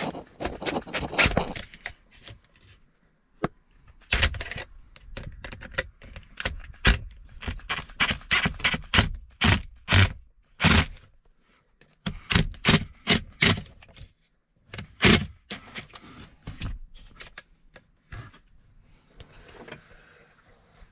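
Handling noise from a car's plastic blower motor assembly while a screw is backed out with a hand bit driver: irregular sharp clicks and knocks with brief scrapes, some much louder than others.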